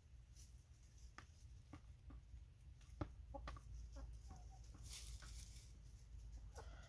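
Hens pecking at grapes on a plastic tray: scattered sharp taps, one louder about three seconds in, with a few quiet clucks.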